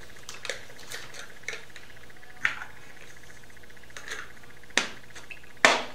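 Small plastic stacking cups being handled and knocked against each other and the tabletop: scattered light clicks, with two sharper knocks near the end.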